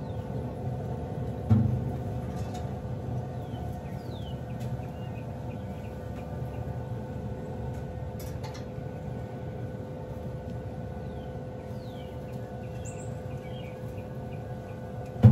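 Weber SmokeFire EX6 pellet grill running with a steady hum from its fan. There is a sudden low thump about a second and a half in and another at the very end, and a few faint bird chirps.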